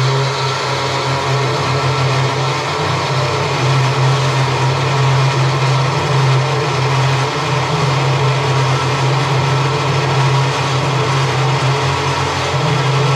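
Metal-cutting circular saw running under load while its blade is slowly fed down through a steel profile: a steady motor hum under the continuous noise of the blade cutting steel.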